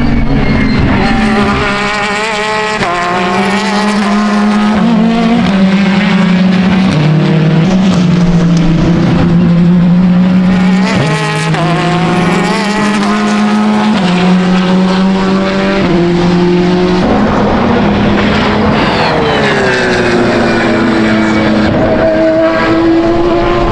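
Race cars running hard past the trackside fence, their engine notes climbing and dropping in steps through the gear changes. Near the end a car's note slides down in pitch as it goes by.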